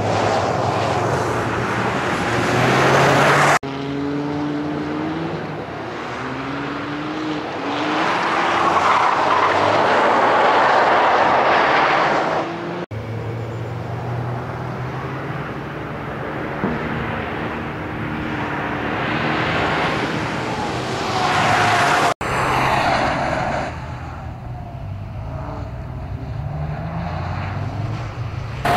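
Toyota GR Yaris's turbocharged three-cylinder engine revving hard under acceleration, its pitch climbing and dropping again and again with gear changes and lifts. Several separate passes are cut together, so the sound jumps suddenly three times.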